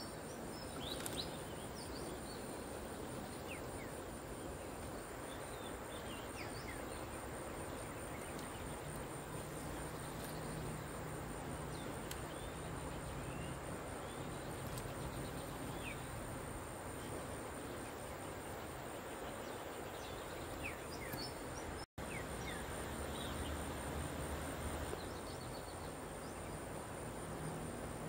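Tropical riverbank ambience: a steady, high-pitched insect trill that pulses evenly, with scattered short bird chirps over an even background rush.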